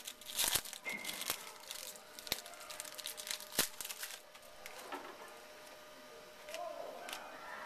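Foil trading-card pack wrapper crinkling and tearing as it is opened by hand, with sharp crackles through the first few seconds, then only a few softer rustles.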